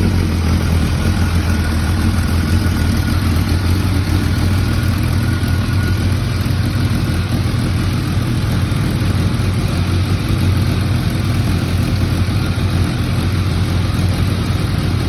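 Kawasaki ZRX1100's inline-four engine idling steadily just after being started, with an even low rumble and no revs.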